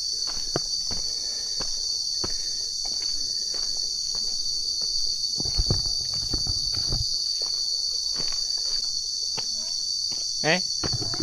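Steady high-pitched buzzing chorus of forest insects. Scattered short clicks and knocks run through it, with a brief low rumble about halfway.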